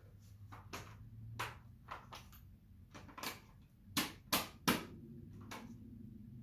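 Hand tools clicking and knocking against a tight bicycle part that is being worked loose, with three sharp knocks in quick succession about four seconds in.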